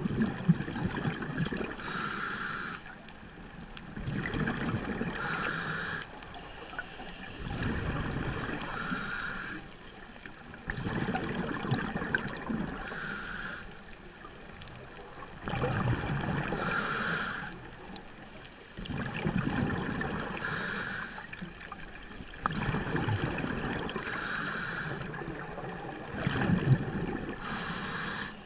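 Scuba diver breathing through a regulator underwater: a short hiss on each inhale, then a longer burble of exhaled bubbles. The cycle repeats about eight times, roughly every three and a half seconds.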